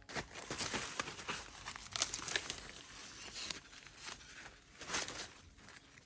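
Dry corn husks and leaves rustling and tearing in irregular bursts as the corn is handled.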